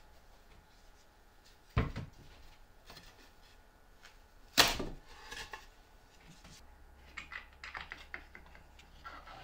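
Plywood boards handled on a workbench: a dull thud about two seconds in, then a sharper wooden knock near the middle, followed by a run of light clicks and small rattles as parts are fitted on the wooden drill stand.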